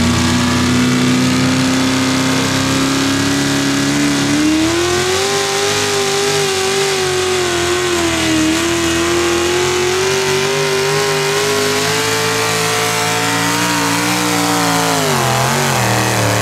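Hot rod pulling tractor's engine running flat out under load: the pitch climbs about four seconds in, holds high with some wavering, then the revs fall near the end.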